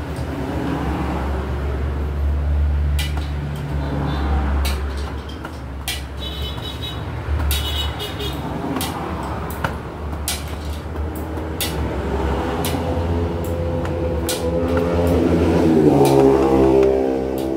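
Steady engine drone of road traffic, with scattered sharp clicks and clinks of metal hand tools. A vehicle grows loudest about sixteen seconds in, its pitch dropping as it passes.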